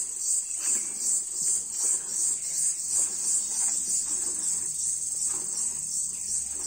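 Cow being milked by hand into a metal pail: jets of milk squirting into the bucket in a steady rhythm of about two squirts a second.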